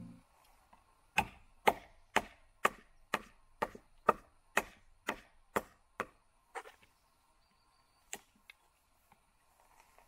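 Firewood being split into kindling by striking it with a wooden baton: about eleven sharp wooden knocks, roughly two a second, growing fainter after the middle, then a few lighter knocks near the end.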